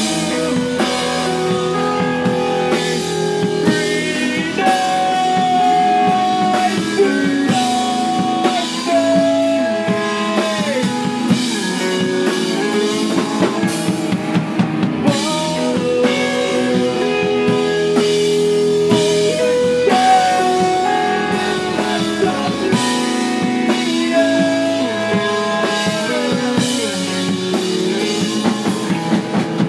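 Live rock band playing: a full drum kit and electric guitars, with long held notes that bend and slide in pitch over the top.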